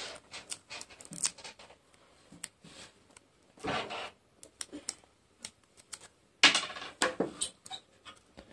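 Light handling noise: small clicks and ticks from a coin being pressed against a taped card cut-out, with two short bursts of card and tape crinkling about four and six and a half seconds in.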